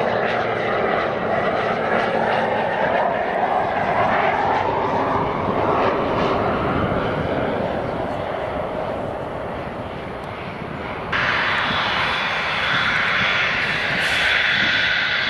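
Pilatus PC-12 single-engine turboprop landing, its propeller and turbine running and slowly getting quieter as it touches down. About eleven seconds in the sound cuts abruptly to the steady high whine of a Cessna Citation business jet's twin jet engines on the runway.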